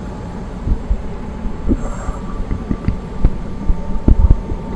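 Airbus AS350 B3 helicopter cabin noise: the turboshaft engine and rotor running in a steady drone with a faint high whine, broken by irregular low thumps.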